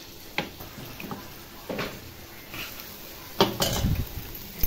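A metal cooking pot and utensils clanking against a steel gas stove: a few separate knocks, the loudest cluster about three and a half seconds in.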